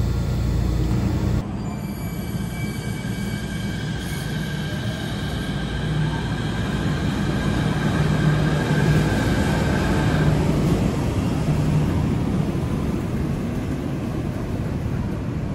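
Chiba Urban Monorail suspended monorail train running past the platform, its electric drive giving a steady whine of several tones over a low rumble. The whine fades out about ten seconds in.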